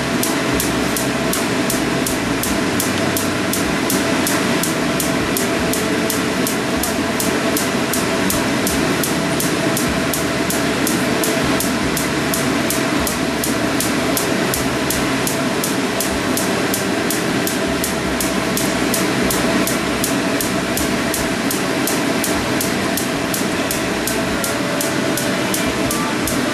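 Hot oil sizzling steadily as sesame-coated rice-flour balls and rings deep-fry in a pan, with a regular ticking about three times a second.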